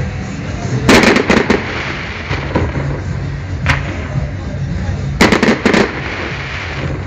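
Aerial fireworks display: a quick cluster of sharp cracks about a second in, a single crack near the middle, and another rapid cluster about five seconds in, over a steady low rumble.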